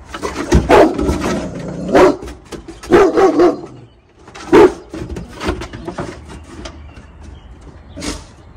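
Rottweiler barking: several loud, deep barks in the first five seconds, then a few quieter ones.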